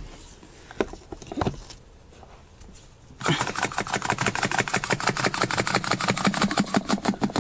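Small knocks of handling, then about three seconds in a power drill driving the Rolladeck windshield cut-out tool starts up and runs with a fast, even clicking as the wire is wound in, cutting the urethane around the glass.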